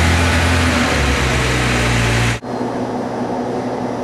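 1966 Jaguar E-Type's 4.2-litre twin-cam straight-six idling steadily while it warms up. About two and a half seconds in, the sound cuts off abruptly to a quieter idle.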